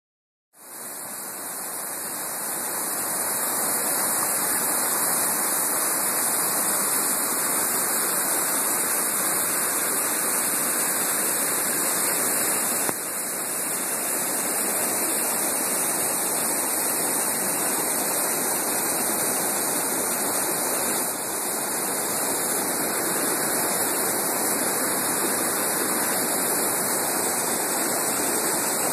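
Steady rushing hiss of the Ammonoosuc River's falls cascading over granite ledges into pools, recorded on a phone microphone.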